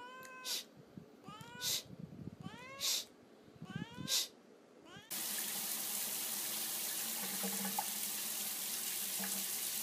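A cat meows four times, each meow rising and falling in pitch and each followed by a short sharp hissing burst. About five seconds in, the sound cuts abruptly to a steady rush of running water.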